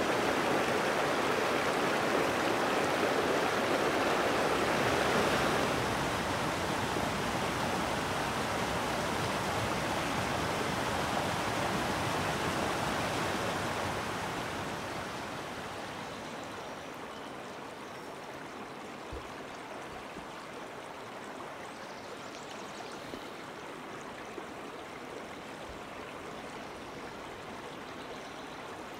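Small mountain stream running over rocks, a steady rush of water; about halfway through it eases to a softer, quieter flow.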